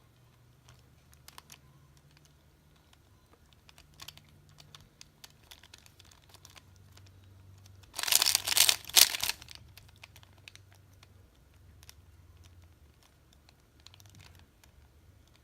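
A 3x3 Rubik's Cube's plastic layers being turned by hand: scattered light clicks, then a fast, louder run of clacking turns about eight seconds in that lasts over a second.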